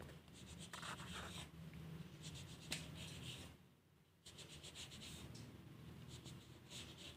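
Kitchen knife drawn in short, repeated scraping strokes through soft bread dough and across the wooden board beneath it as it cuts slits in the dough; faint, with a low steady hum underneath.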